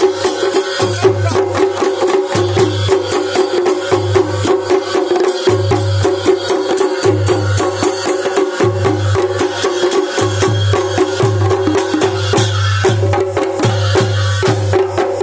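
Nepali panche baja folk ensemble playing: jhyali hand cymbals clashing and a damaha drum beaten with a stick in a fast, steady rhythm over a steady held tone.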